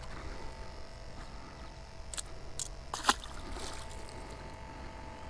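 Wind rumbling on the microphone over a faint steady hum of nearby construction machinery, with a few short clicks and knocks between about two and four seconds in, the loudest about three seconds in.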